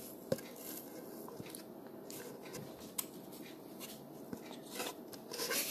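Faint scattered clicks and rustles over a quiet room hum, with a sharper click about a third of a second in and another about three seconds in.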